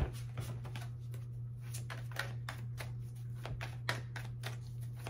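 A deck of tarot cards being shuffled by hand: soft, irregular clicks and rustles of cards against one another, over a steady low hum.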